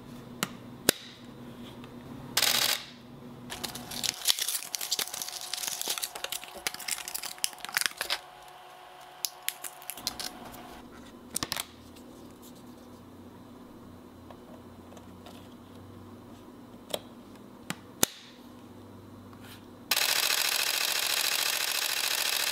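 Canon EOS-1D X Mark II being handled: scattered clicks and a crackly rustling stretch as its memory-card door and cards are worked. Near the end its shutter starts firing in a continuous high-speed burst.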